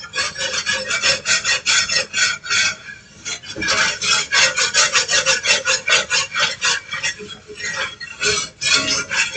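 A utensil scraping across the bottom of a cast iron skillet in quick back-and-forth strokes, stirring a flour-and-oil roux and loosening the browned bits. There are brief pauses about three seconds in and near the end.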